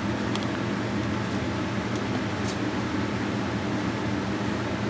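Steady low hum and hiss of background noise, with a couple of faint light taps.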